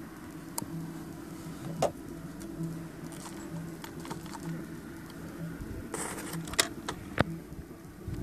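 Scattered clicks and taps from hands handling a nitro RC buggy's chassis and linkages, with a brief rustle about six seconds in, over a low steady hum. The engine is not running.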